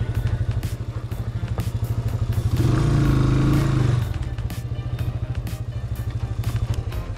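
Motorcycle engine running on a dirt trail at low revs, rising in revs for about a second around three seconds in, then settling back. Scattered clicks and knocks run over it.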